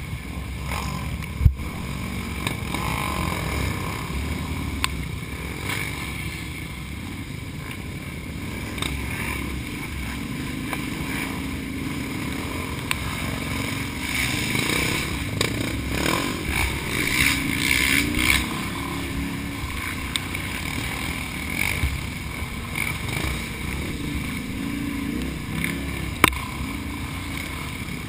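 Can-Am Outlander ATV engine running under way, its pitch rising and falling as the throttle is worked, heard from an onboard camera with wind on the microphone. A sharp knock sounds about a second and a half in and another near the end.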